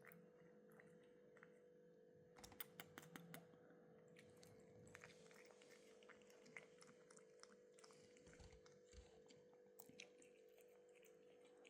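Faint wet chewing and lip-smacking clicks of a Bengal cat eating, in a quick cluster a few seconds in and then scattered, over a faint steady hum.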